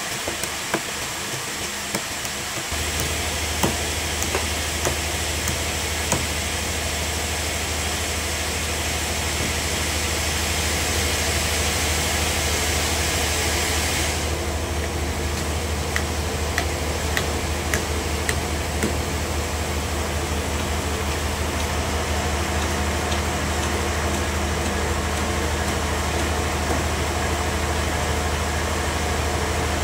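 Sawmill machinery running steadily with a low hum that comes in about three seconds in, with scattered light knocks and clicks.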